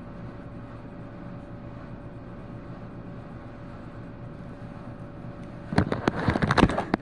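Steady low mechanical hum with a faint held tone. Near the end, about a second of loud clattering and rustling, as of something handled close to the microphone.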